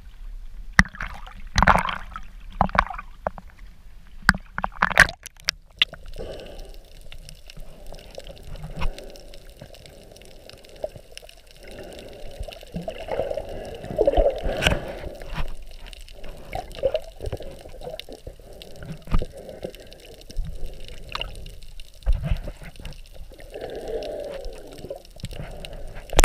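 Sea water splashing and slapping around a waterproof camera at the surface for the first few seconds. About six seconds in the camera goes under and the sound turns muffled: gurgling water with scattered clicks and knocks.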